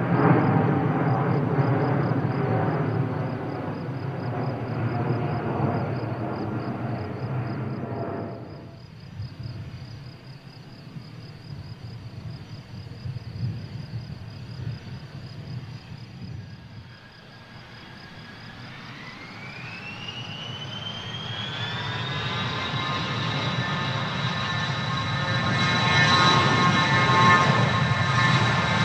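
Aircraft engines: a steady rumble that drops away about a third of the way in, then a whine that rises in pitch and levels off into a steady high whine, growing louder toward the end as the turbine engines spool up.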